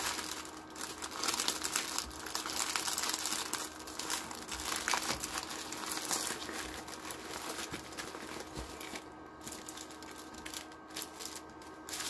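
Plastic packaging crinkling and rustling as it is handled, busiest through the first several seconds and lighter and more broken near the end.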